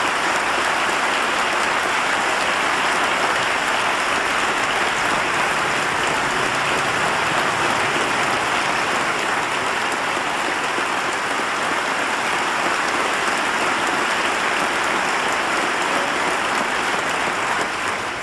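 A large crowd applauding steadily, dense continuous clapping that dies away at the very end.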